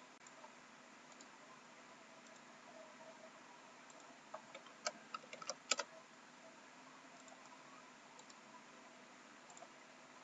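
Computer keyboard and mouse clicks: a short quick run of about ten clicks a little past the middle, over faint room hiss.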